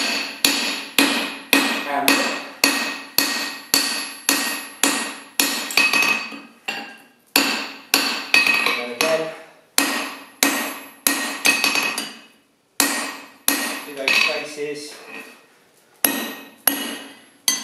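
Rounding hammer striking red-hot steel on an anvil, hand-forging a top fuller blank. About two blows a second, each followed by a bright metallic ring from the anvil, with a few short pauses between runs of blows.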